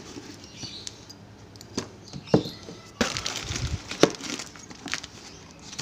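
Cardboard and paper packaging rustling and crackling as it is pulled apart and pushed aside by hand, with scattered light taps and a few sharper knocks.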